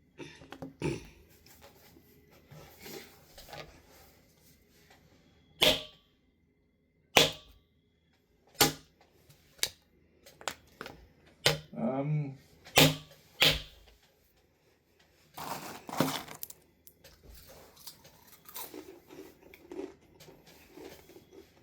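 Plastic game pieces and cards slapped and tapped on a tabletop: about seven sharp hits spread through the middle of the stretch, with softer shuffling and handling rustles between.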